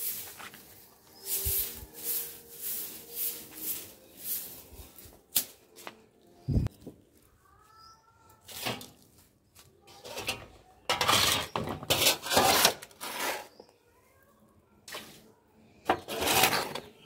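Ash being scraped and shovelled with a flat metal scoop and tipped into a metal basin. A quick run of short scrapes comes in the first few seconds, and longer, louder scrapes follow later.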